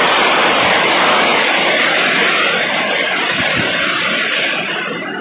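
Heavy rain pouring down, a loud steady rush of noise that eases slightly toward the end.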